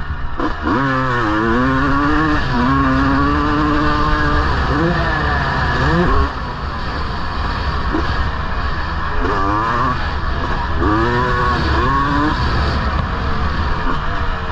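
1999 Honda CR250R's 250 cc single-cylinder two-stroke engine being ridden hard, the pitch climbing sharply as the throttle opens and dropping back as it closes, several times over.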